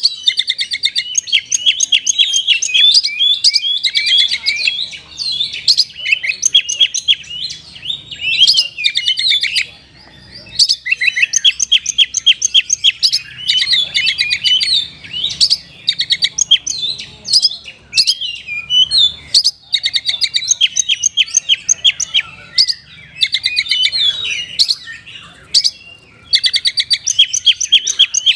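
Oriental magpie-robin (kacer) singing loudly in fast chattering, trilled phrases, the song the title calls 'kacer rasa kapas tembak', a kacer copying a kapas tembak. Bursts of song are broken by short pauses.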